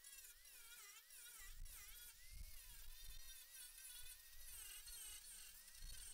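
Near silence with the faint buzz of a flying insect, its pitch wavering up and down as it moves about.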